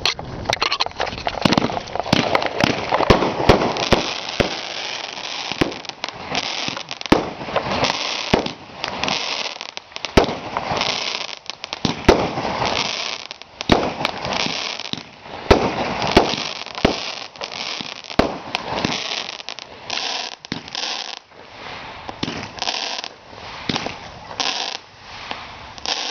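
Phantom Fireworks Molotov Cocktail firework cake firing: a fast, continuous run of shots launching and bursting, with crackling and hissing between the bangs.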